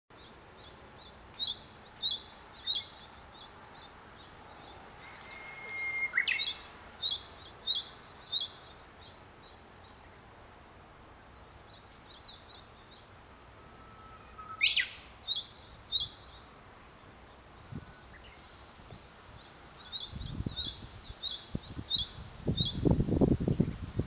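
Wild songbirds singing: several bouts of quick, high repeated paired notes a few seconds apart, and twice a Japanese bush warbler's long level whistle followed by a quick rising flourish. Low buffeting on the microphone near the end.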